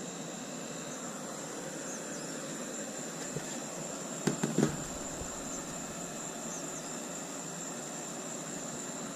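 Steady outdoor background hiss with a continuous high-pitched insect trill, like crickets. A few quick knocks about halfway through.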